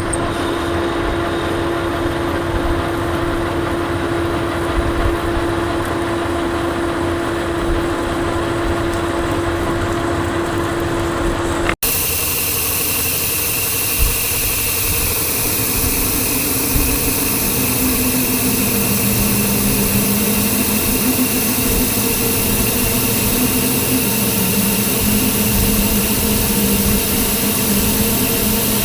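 Metal lathe running steadily while a drill cuts a hole into a steel workpiece. About 12 seconds in the sound cuts off abruptly and resumes with a different steady tone.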